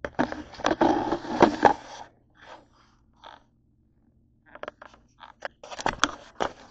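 Scraping, clattering handling noise as the camera is moved about on a table. There is a loud stretch of scraping with sharp clicks in the first two seconds, a few faint taps, and another cluster of clicks and scrapes near the end.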